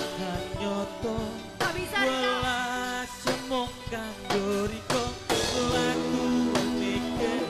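Live orkes melayu (dangdut) band playing, with an electronic keyboard, a melody line that bends in pitch and sharp drum hits.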